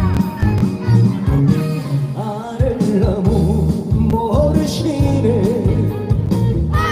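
Instrumental introduction of a trot song: a steady bass-and-drum beat under a wavering lead melody.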